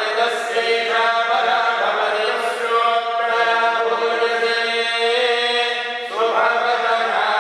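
Tirumala temple priests chanting Sanskrit mantras, a continuous sing-song recitation on long held notes that shift about once a second, with a brief breath break about six seconds in.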